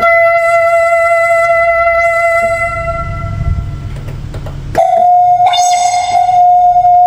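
Roland VA-7 arranger keyboard sounding a held high note in one of its voices, fading over about four and a half seconds. Just under five seconds in, a new, slightly higher held note starts.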